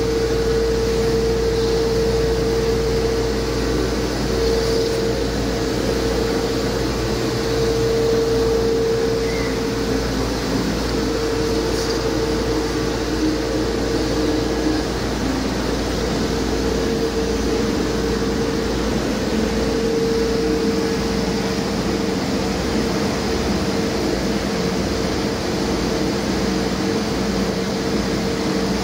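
Paccar MX-13 12.9-litre inline-six diesel engine running at a steady speed, with a steady whine sounding over the engine's running.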